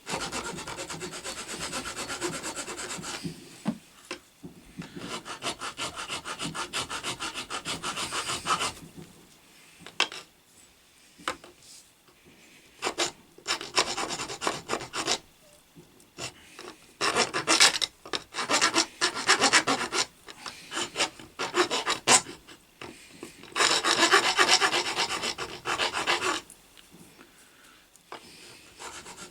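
Hand file rasping rapidly back and forth over the flared burr on a bronze lathe steady-rest finger, in spells of quick strokes broken by short pauses.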